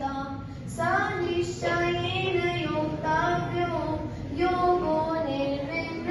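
A girl singing solo into a microphone, in long held notes that bend in pitch, with no instruments.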